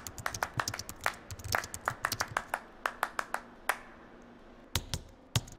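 Typing on a computer keyboard: a quick, uneven run of key clicks. After a short pause come a few heavier, deeper key strikes near the end.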